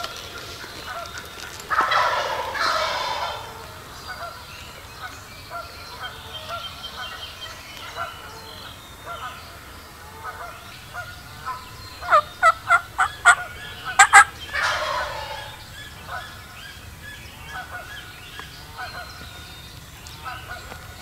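Wild turkey gobblers gobbling twice, each a loud rattling call that falls away, about two seconds in and again near the middle. Just before the second gobble comes a quick run of short, sharp, loud notes, with faint bird calls in between.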